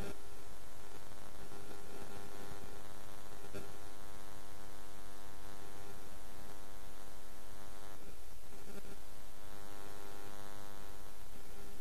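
Steady electrical mains hum with a dense stack of even overtones, buzzing on an open audio feed.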